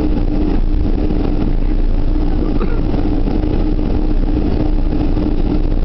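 Boeing 747-400 taxiing, heard from inside the passenger cabin: a steady low rumble from the airliner with a constant hum underneath.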